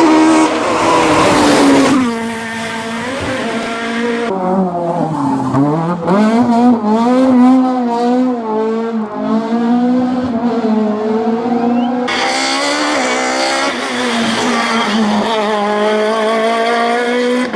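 Four-cylinder Kit Car rally car engine at full attack on a hillclimb, revving hard with pitch falling and rising through gear changes; the revs drop sharply about five seconds in, as when braking for a corner, then climb again and waver, and the sound gets louder and brighter near twelve seconds.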